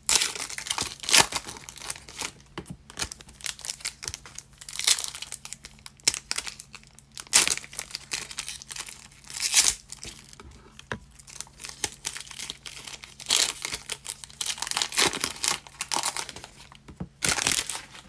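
Foil trading-card pack wrappers crinkling and tearing as a pack is ripped open and the cards pulled out, in irregular bursts.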